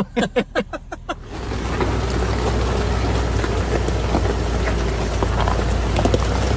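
Off-road vehicle driving: a steady low engine rumble under a loud wash of noise that comes in suddenly about a second in.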